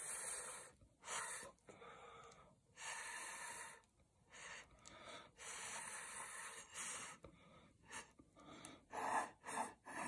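A person blowing through a straw onto wet acrylic paint to push it across the canvas, in a series of short breathy puffs of air, some about half a second and some nearly a second long, with gaps between them.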